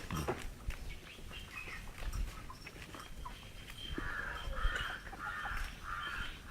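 A bird gives a run of about five harsh, evenly spaced calls in the second half, over low farmyard background noise.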